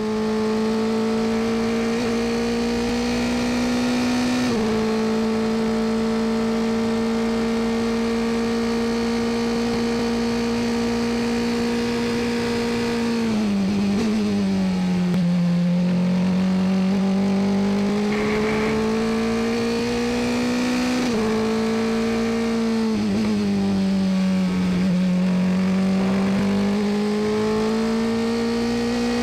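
Dallara F317 Formula 3 car's engine heard onboard, running at high revs. Its note holds steady on the straight, dips twice as the car slows for corners and climbs again as it accelerates out, with a couple of sudden small steps in pitch.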